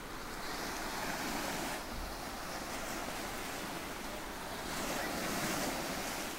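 Ocean surf: small waves breaking and washing up onto the shore, the wash swelling twice, about a second in and again about five seconds in.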